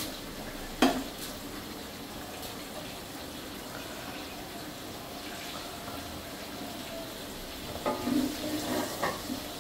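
Whole spices sizzling in hot oil in a metal pot, with one sharp knock about a second in. Near the end a wooden spatula scrapes and knocks against the pot as the spices are stirred.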